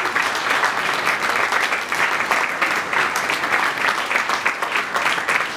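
Applause from a roomful of people, many hands clapping at a steady level.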